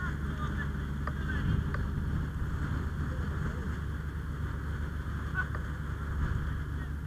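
Steady low drone of a running engine, with faint distant voices over it and an occasional light click.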